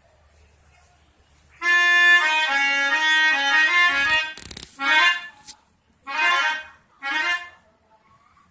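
Pianika (melodica) playing a telolet bus-horn tune: a couple of seconds of shifting notes, a brief noisy burst, then three short blasts.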